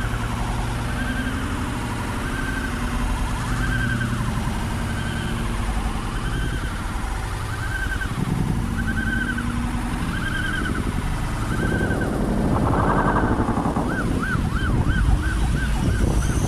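Emergency-vehicle siren sounding over a low engine and traffic rumble. It gives one rising wail about once a second, then switches about two seconds before the end to a fast warble.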